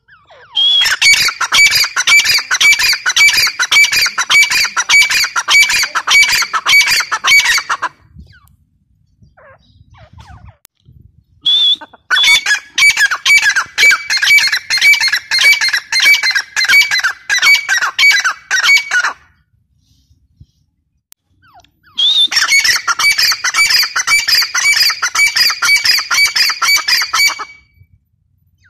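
Grey francolin calling: three bouts of loud, fast, repeated ringing notes, each lasting six to eight seconds with a few seconds' pause between. Each bout opens with a short rising note.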